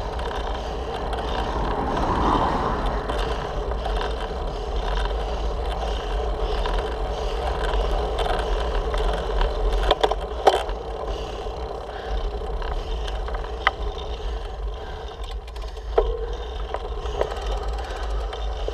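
Road bike climbing slowly, heard through a handlebar-mounted camera: a steady low rumble of road vibration and wind on the microphone, with a few sharp clicks and knocks about halfway through and again later.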